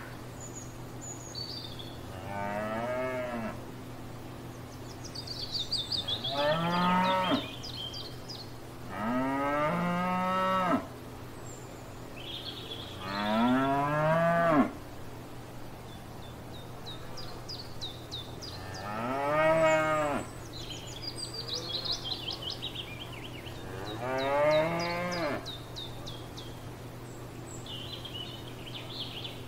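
Cows mooing: about six long moos a few seconds apart, each rising and then falling in pitch.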